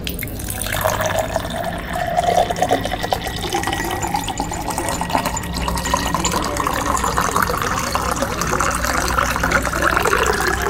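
Liquid pouring steadily into a vessel, its pitch rising slowly as it fills.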